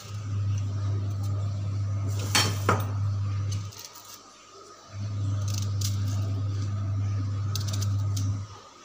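Two sharp metallic clinks of a knife and cut vegetable against a small steel bowl about two and a half seconds in, with a few fainter taps later, over a steady low hum that drops out for about a second midway and stops near the end.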